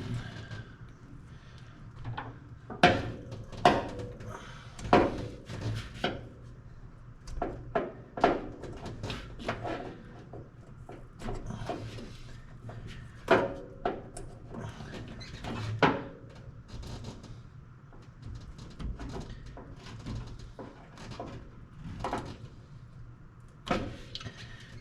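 Irregular clicks and knocks of hands working wiring terminals into a 1972 Chevy K20's bulkhead connector while trying to snap them in, over a steady low hum.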